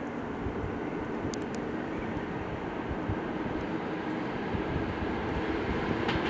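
ED4M electric multiple unit approaching along the track, a steady rumble of wheels and running gear growing slowly louder. A few faint high clicks come about a second and a half in, and a faint high hiss comes in near the end.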